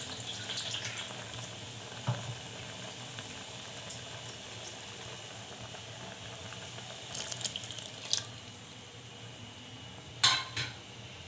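Tamarind water being poured into a pot of cooking masala, a steady watery splashing and trickling with a few small clicks, and a sharp knock about ten seconds in.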